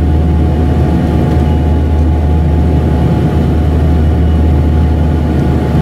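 Dash 8 Q300's Pratt & Whitney PW123 turboprops and propellers heard inside the cabin: a steady loud low drone with a steady higher tone above it. The aircraft is on approach with its landing gear extended.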